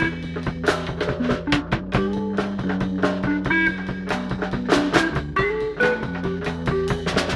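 Live band jam: a drum kit played with frequent drum and cymbal hits, over electric guitar and bass playing changing low notes.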